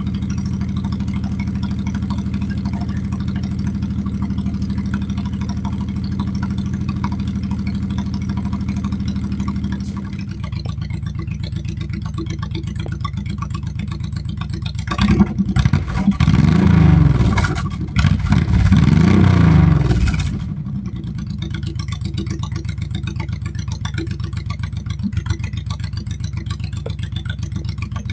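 An engine running steadily, dropping to a lower, quieter idle about ten seconds in. It is then revved twice in quick succession, each time rising and falling in pitch, and settles back to idle.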